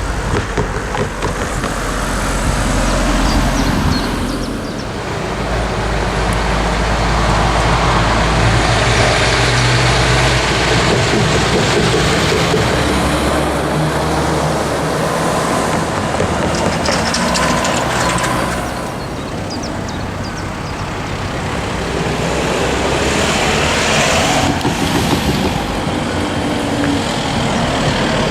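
Heavy vehicle running with a low engine hum and a rushing noise, easing briefly about five seconds in and again a little before twenty seconds.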